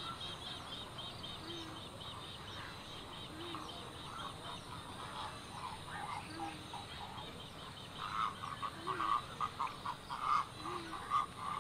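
Wetland animal calls: a low, short call repeats about every two seconds. A fast high trill sounds over the first few seconds, and from about eight seconds in a louder series of rapid croaking pulses takes over.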